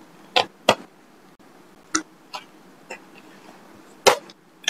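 Pages of a spiral-bound paper notebook being flipped through: about half a dozen short, sharp paper flicks spread across the few seconds, over faint room hiss.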